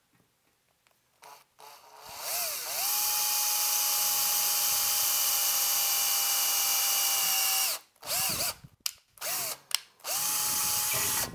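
Cordless drill boring a small pilot hole through a metal amplifier chassis. The motor whines up to speed about two seconds in and runs steadily for about five seconds, then stops; a few short trigger bursts follow, then another steady run near the end.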